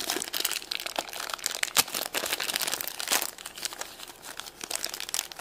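A wrapper being crinkled and pulled open by hand, a steady run of crinkling with sharp crackles.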